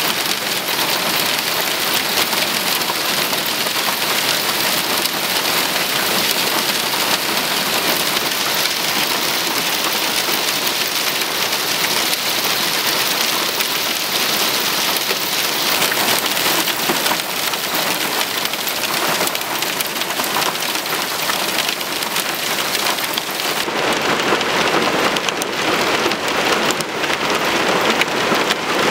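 Hail mixed with heavy rain pelting wet pavement: a dense, steady patter of small stones striking the ground. The sound shifts about three-quarters of the way in, with less high hiss and a fuller, lower patter.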